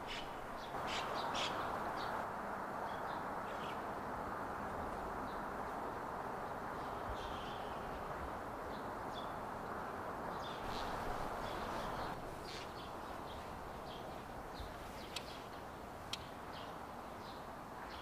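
Steady rush of flowing river water, with short high-pitched bird chirps scattered through it in small clusters.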